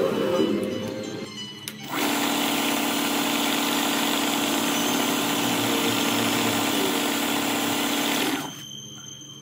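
A small power tool runs steadily for about six seconds, starting abruptly about two seconds in and cutting off shortly before the end, with background music underneath.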